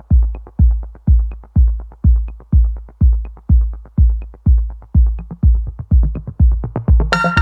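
Electronic background music with a steady deep kick drum about two beats a second and a light high tick on every other beat; a fuller synthesizer layer comes in near the end.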